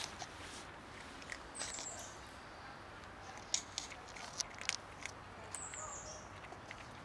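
Cats crunching dry kibble: irregular small, crisp clicks. A high chirp that falls in pitch comes twice, early and near the end.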